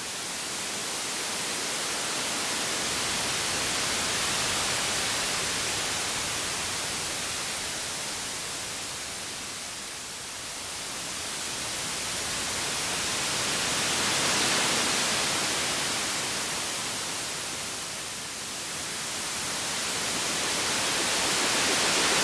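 Arturia MiniBrute analog synthesizer sounding wind-like filtered white noise with no pitched notes. It swells and fades in slow waves, the hiss growing brighter and then duller about every eight seconds as the filter is swept.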